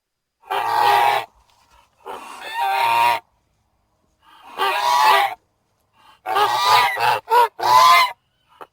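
Sound-effect calls presented as those of the extinct giant moa: a series of bird-like calls about a second long each, spaced apart at first, then coming closer together near the end with two short calls between the longer ones.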